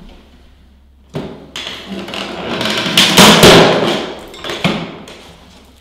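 Lever-action laminate cutter shearing through a click-laminate plank: a loud crunching cut about three seconds in, after a couple of knocks as the plank is set in the cutter, and one more knock near the end.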